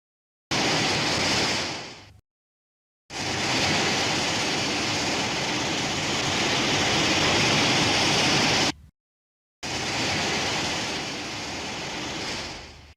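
Three separate film sound-effect clips of rushing, hiss-like noise with dead silence between them: a short one that fades, a long steady one that cuts off suddenly, and a third that fades out.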